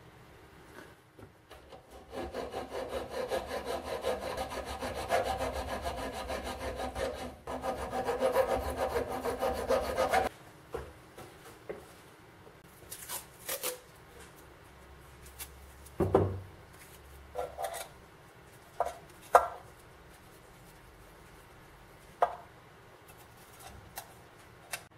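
A hacksaw cuts through a cast aluminium fitting clamped in a steel vise, with fast back-and-forth strokes for about eight seconds that stop abruptly. Scattered short clicks and knocks follow.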